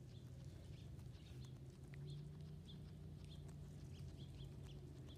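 Guinea pig grazing on lawn grass: faint scattered clicks of tearing and chewing. Short high chirps come every half second or so over a low steady hum.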